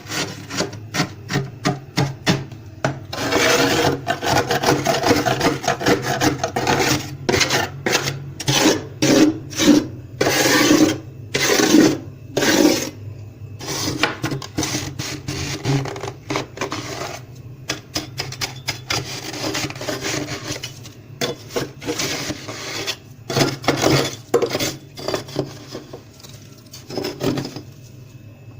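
Freezer frost being scraped off in quick, repeated rasping strokes, dense in places and spaced out in others, over a steady low hum.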